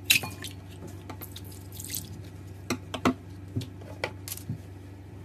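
Scissors snip open a water-filled rubber stress ball, and the water spills and drips into a glass bowl. A sharp snip comes at the start, then a brief splash and several separate drips on the glass.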